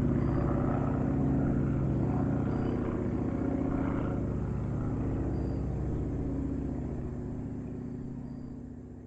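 Small propeller airplane's engine running steadily, growing fainter from about six seconds in as it moves away.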